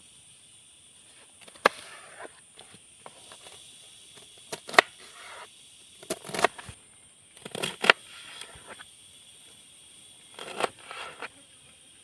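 A kitchen knife slicing through a cabbage, the blade knocking on a plastic cutting board in irregular strokes, some in quick pairs.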